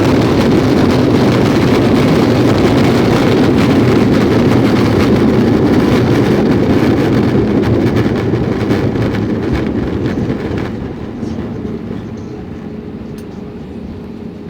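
Airbus A321-200 rolling out on the runway after touchdown: a loud rumble of engines and wheels that starts to fade about eight seconds in and drops away suddenly near eleven seconds as the aircraft slows, leaving a quieter steady hum.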